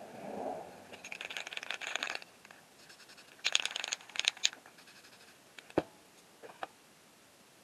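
Spray paint can in use: a rapid scratchy rattle for about a second, then a few short hissing sprays, then two sharp clicks.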